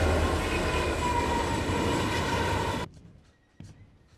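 Train running on the rails: a loud, heavy low rumble with several steady high tones over it. It cuts off suddenly a little under three seconds in, leaving quiet with a faint knock.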